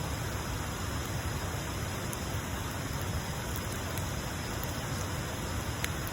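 Wood bonfire burning: a steady hiss with a few faint, sharp crackling pops.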